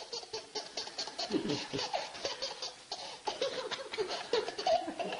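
Baby laughing hard in a long run of quick, repeated giggles, played back over a hall's loudspeakers.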